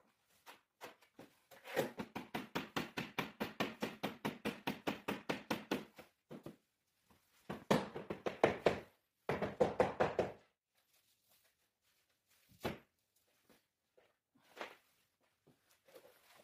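Rapid knocking on a wooden floor plank, about seven knocks a second for some four seconds, then two shorter fast runs and a couple of single knocks: a replacement plank being tapped down into its place in the floor.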